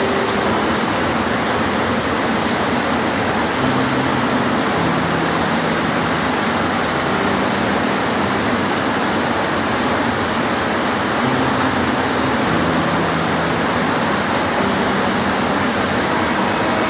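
Steady, dense rain hiss with no breaks, and faint low tones coming and going beneath it.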